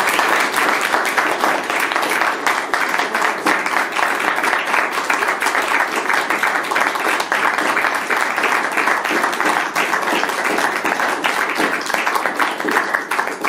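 Audience applauding, many hands clapping at once in a dense, sustained patter.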